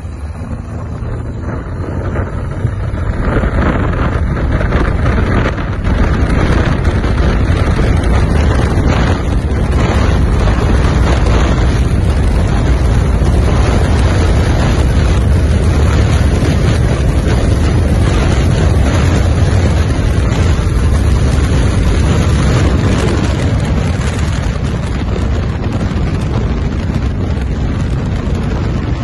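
Single-engine floatplane's propeller engine running at takeoff power, a loud steady drone that builds over the first few seconds, with wind buffeting the microphone.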